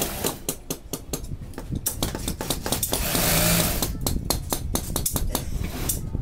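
Industrial sewing machines running in short bursts in a workshop, with rapid, irregular clicking and clatter and a brief low hum about three seconds in.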